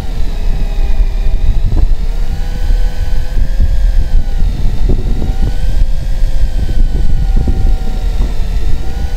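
Daiwa Tanacom 750 electric fishing reel winding line up from deep water, its motor whining with a pitch that rises and falls slowly as the load on the line changes. A heavy low rumble from the boat's engine runs underneath.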